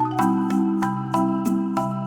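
Marimba music: a quick melody of struck mallet notes, several a second, over sustained low bass notes.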